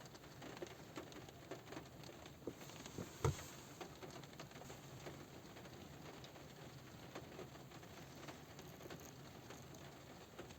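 Light rain pattering on a car roof: many small, scattered drop taps over a faint steady hiss, with one louder drop hit about three seconds in.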